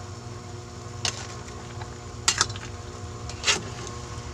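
Metal spoon clinking against an aluminium pot while stirring tamarind soup mix into the broth: four sharp clinks, two of them close together, over a steady low hum.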